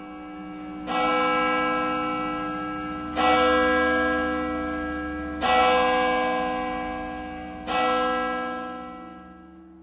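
A church bell tolling four times, about two seconds apart, each stroke ringing on and fading slowly, over a low steady drone.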